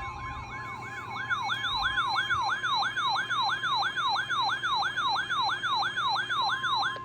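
Weather radio alarm going off for a warning: a loud electronic siren warbling up and down about three times a second over a steady single tone near 1 kHz, the NOAA Weather Radio warning alarm tone that comes before a warning message.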